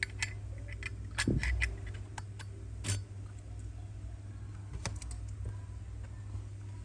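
Light metallic clicks and taps from a Zippo lighter being handled, scattered irregularly and bunched in the first three seconds, over a steady low hum.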